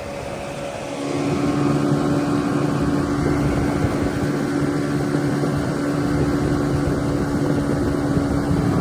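Boat motor running with a steady hum, which shifts pitch and gets louder about a second in, then holds steady.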